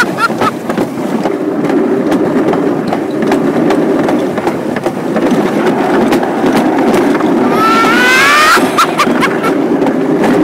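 Summer luge sled running fast down its track channel: a steady loud rolling rumble with rapid sharp clacks as it rides over the track's joints and bumps. About eight seconds in, a brief rising squeal is heard over the rumble.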